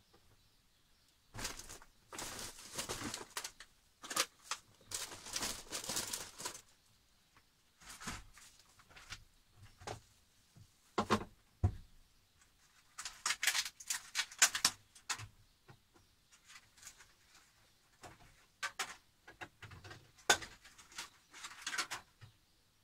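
Food being packed away: plastic bags rustling in several bursts, with clicks and knocks of packages, containers and cupboard or fridge doors being handled.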